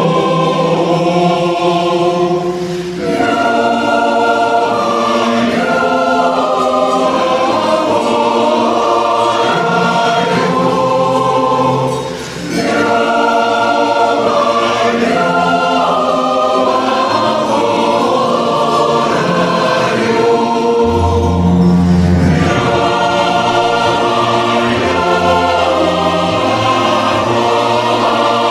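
Choral music: a choir singing sustained chords that change every second or two, with two brief softer dips.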